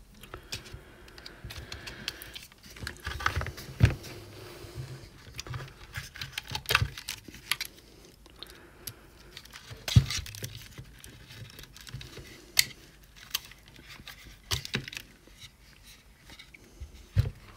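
Irregular clicks, taps and knocks of a soldering station's plastic case and internal parts being handled as its halves are separated, with light rustling of the wiring; the sharpest knocks come about 4 and 10 seconds in.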